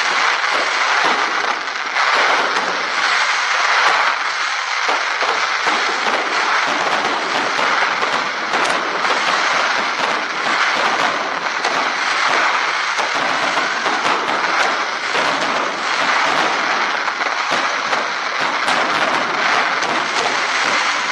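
Aerial fireworks going off: a dense, unbroken crackle and hiss of many bursting shells, with sharper cracks toward the end.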